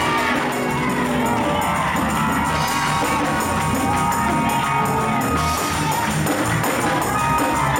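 Live gospel music: voices singing held notes over a steady percussion beat.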